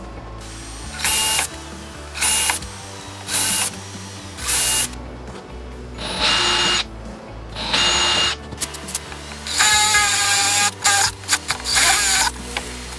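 Cordless drill running in four short bursts about a second apart, then in several longer runs with a whining motor, drilling into a plywood panel. Background music plays underneath.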